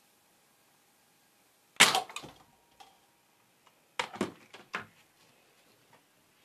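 A Nerf blaster fires a foam dart with a sharp snap, and paper cups are knocked over with a light clatter about two seconds in. About two seconds later comes a second, weaker cluster of plastic clicks and knocks.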